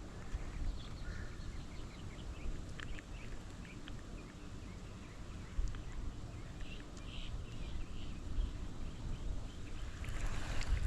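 Outdoor ambience: a steady low rumble of wind on the microphone, with faint, scattered bird chirps.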